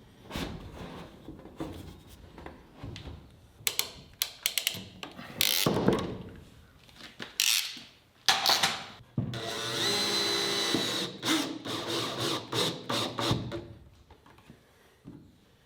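Tool work and handling: a series of clicks and knocks, with a power drill running for about three seconds just past the middle.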